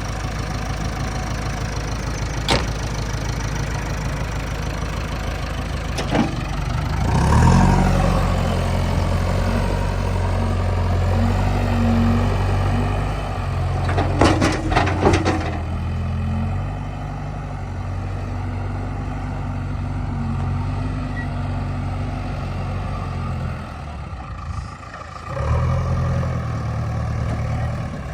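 Heavy diesel machine engine running at idle, then revving up under load for several seconds about seven seconds in. A few sharp metallic clanks come around the middle. The engine dips briefly near the end and picks up again.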